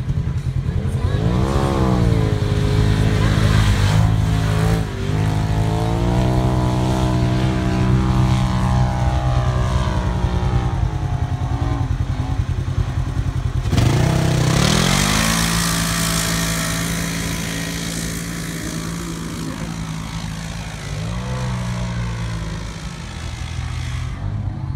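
Side-by-side UTV engine revving hard under load as it drives up sand dunes, its pitch climbing and dropping with the throttle. Sharp revs about a second and a half in and again about 14 seconds in, the second with a rush of hiss, and the engine grows fainter over the last several seconds as the vehicle pulls away.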